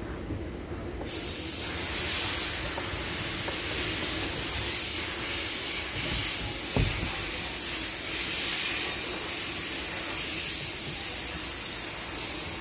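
A loud, steady hiss of a pressurized jet switches on abruptly about a second in and keeps going, with a single sharp knock near the middle.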